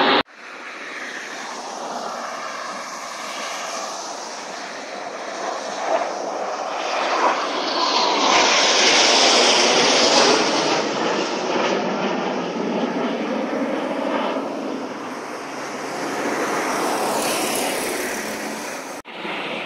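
Jet aircraft of an aerobatic display formation flying over, a steady jet engine rush that swells to its loudest about halfway through and then slowly eases. The sound cuts out abruptly for a moment just after the start and again shortly before the end.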